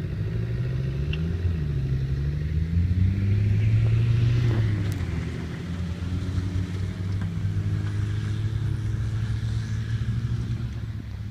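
Car engine under load as the car drives across rough ground, revving up, dropping back about a second and a half in as it changes gear, then climbing to its loudest around four seconds in before easing to a steadier note. A single sharp click sounds about five seconds in.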